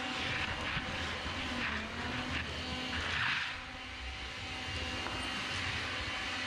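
Vacuum cleaner running steadily, with a brief louder hiss about three seconds in.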